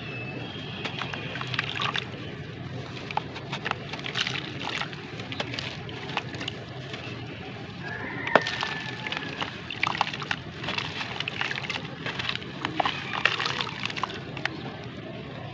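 Wet sand-cement chunk being squeezed and crumbled by hand in a plastic tub of water: water sloshing, with many gritty crackles and crunches as the chunk breaks apart and sand pours into the water, one sharper crack about eight seconds in.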